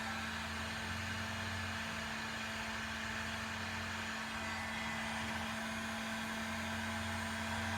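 Electric heat gun running steadily, its fan blowing with a constant hum, while it shrinks heat shrink tubing over a soldered wire joint.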